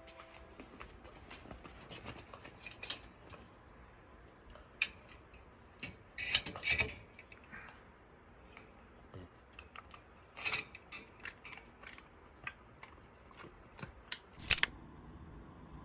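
Scattered sharp clicks and short snipping sounds, irregular, with louder clusters about six and a half, ten and a half and fourteen and a half seconds in.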